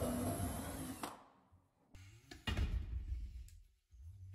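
DeWalt cordless drill running a stepped bit through a pocket-hole jig into wood, stopping about a second in. Then several clicks and knocks as the locking clamp is released and the jig handled.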